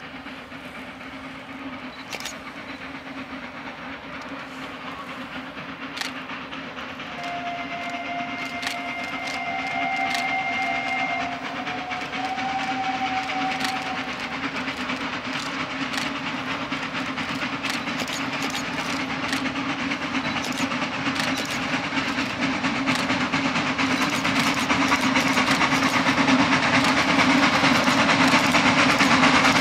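Narrow-gauge freight train hauled by two steam locomotives approaching and growing steadily louder, with sharp clicks from the wheels on the rails. A steam whistle sounds for several seconds, starting about seven seconds in.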